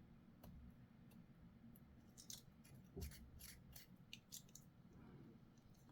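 Faint clicks and light scrapes of small plastic model-kit parts being handled and pressed together, with a cluster of sharp clicks and a soft knock in the middle.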